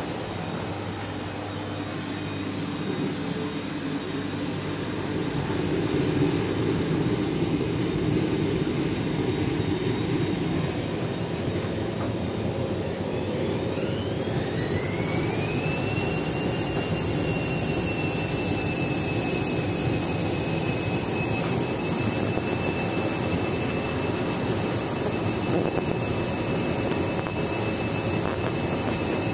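Candy Grand'O Vita front-loading washing machine on a spin and rinse cycle: a steady drum rumble, then about halfway a motor whine rises in pitch and levels off into a steady high whine as the drum comes up to spin speed.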